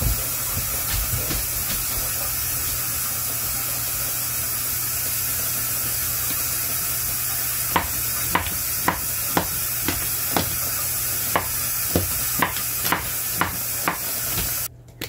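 Kitchen faucet running steadily into the sink, with a knife chopping on a cutting board about twice a second from about halfway through. The running water cuts off suddenly near the end.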